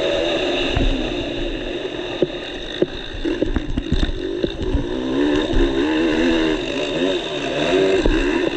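Motocross bike engine heard from the rider's own machine, its revs rising and falling as the throttle is worked through the corners. A few sharp knocks come through between about two and five seconds in.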